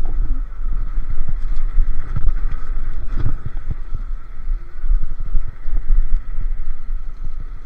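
Solar P1 Pro electric scooter riding along, a steady high motor whine heard under heavy, uneven wind buffeting on the microphone.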